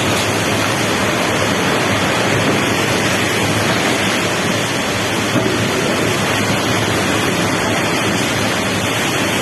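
Strong wind blowing hard, a loud, steady rush of noise without a break.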